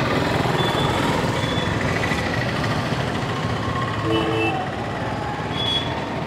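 Steady street traffic noise from passing motorbikes and auto-rickshaws, with short horn beeps now and then, one lower two-tone horn about four seconds in.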